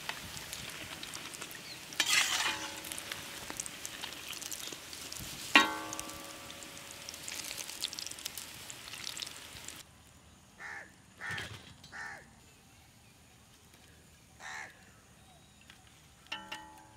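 Hot oil sizzling steadily as batter-coated chicken liver fritters deep-fry in an iron kadai, with a steel skimmer scraping through and striking the pan once with a ringing clink about five seconds in. About ten seconds in the sizzling cuts off, leaving only a few short faint sounds.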